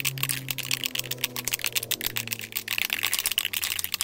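Aerosol can of high-temperature spray paint being shaken hard, its mixing ball rattling in a fast, even clatter as it stirs the paint before spraying.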